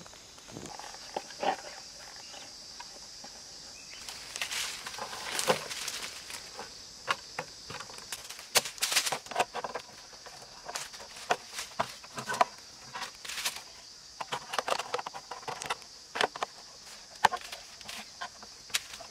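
Dry leaf litter crackling and rustling in quick, irregular bursts from about four seconds in, as it is handled and shifted at close range, over a steady high insect drone.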